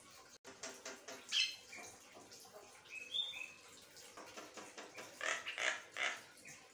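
Caged Javan myna chattering in loose bursts: a harsh, scratchy call about a second and a half in, a couple of short whistled notes around three seconds, and another cluster of scratchy notes near the end.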